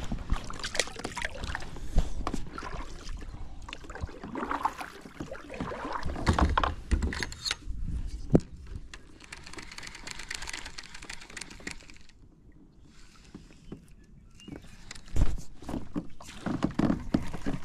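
Water splashing and lapping against a plastic fishing kayak, with irregular knocks and clicks of fishing gear being handled on the hull. It goes quieter for a few seconds about twelve seconds in.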